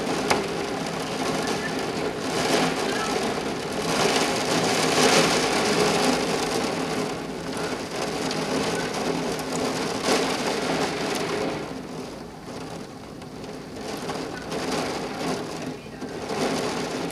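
Heavy rain falling in a thunderstorm, swelling and easing in waves as gusts of wind drive it. A single sharp click sounds just after the start.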